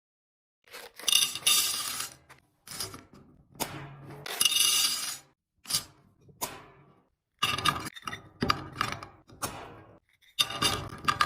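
Glass jars and food containers clinking and knocking as they are set down and arranged on fridge shelves: a run of separate clinks and clatters, some with a short ring.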